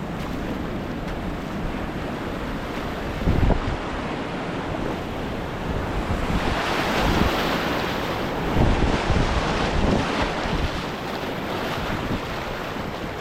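Rushing river whitewater with wind buffeting the microphone; the water's hiss swells for a few seconds about halfway through.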